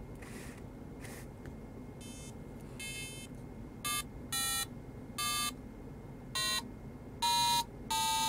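Electronic laser harp kit sounding single notes through a small speaker held in a hand to damp it, as a finger breaks its laser beams: short electronic beeps of different pitches. The first notes are faint around two seconds in, and about half a dozen louder ones follow from about four seconds in.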